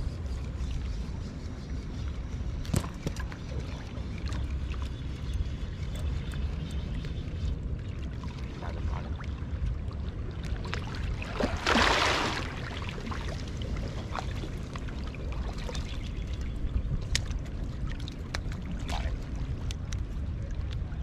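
A hooked mullet splashing loudly once at the surface about halfway through, as it is drawn into the shallows at the rock edge. Under it, a steady wind rumble on the microphone and small clicks and water sounds.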